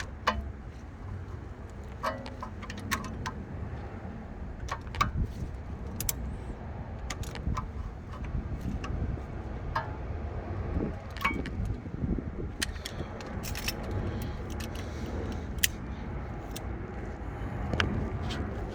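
Metal hand tools clinking, tapping and scraping on the parking-brake cable clip of a car's rear brake caliper as it is pried loose: scattered irregular clicks and clinks over a steady low rumble.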